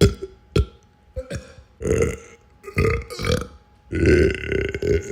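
A person belching over and over: two short burps at the start, then several longer, drawn-out belches with a pitched, throaty tone.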